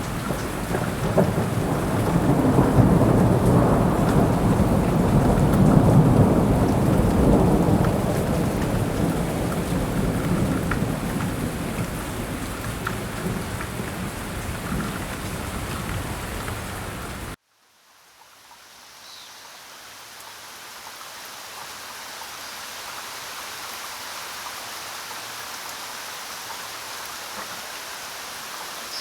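Heavy rain with a deep rolling rumble of thunder, loudest a few seconds in and slowly easing. About two-thirds of the way through it cuts off abruptly, and a lighter, steady rain fades in.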